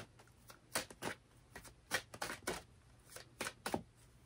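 Hand-shuffling a deck of tarot cards: an irregular series of quick, light snaps and rustles as the cards slide and tap together.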